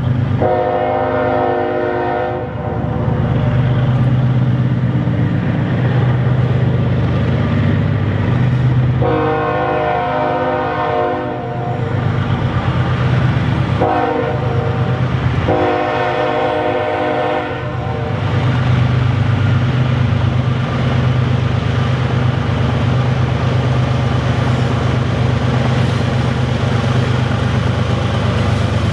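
BNSF diesel freight locomotive sounding its multi-note air horn in the grade-crossing pattern, long, long, short, long, the signal for approaching a road crossing, over the steady low rumble of its engine.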